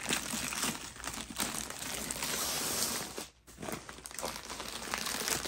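Packaging crinkling and rustling as a rolled diamond painting canvas is taken out of its bag and unwrapped, with a brief break about three seconds in.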